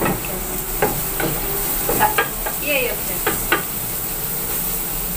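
Ginger, garlic and shallots sizzling in hot oil in a frying pan, being sautéed until fragrant. A wooden spatula stirs them, scraping and knocking against the pan about six times.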